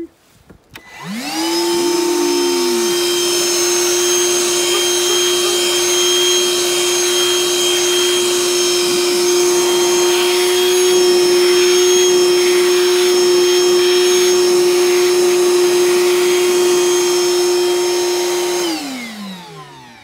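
Ryobi cordless wet/dry vacuum motor spinning up to a steady high whine with a rush of air through the hose as the nozzle works over a doormat. It is switched off near the end and the whine falls away as the motor winds down.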